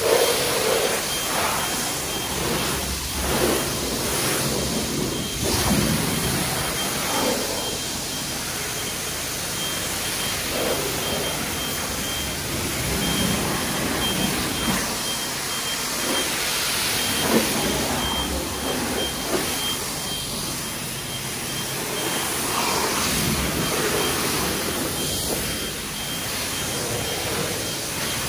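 Self-serve car wash pressure wand spraying water onto a car: a steady hiss that swells and fades as the spray moves, with a faint high beep repeating on and off.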